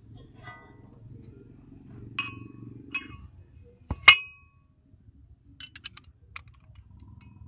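Steel spanners and sockets clinking against each other as they are picked up and set down, with four ringing metallic clinks, the loudest about four seconds in, followed by a few lighter clicks.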